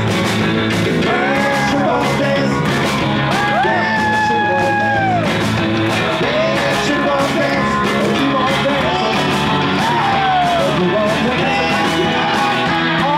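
Live rock-and-roll band playing with electric guitars, bass, drum kit and keyboard, the drums keeping a steady beat, with voices singing and shouting over the music.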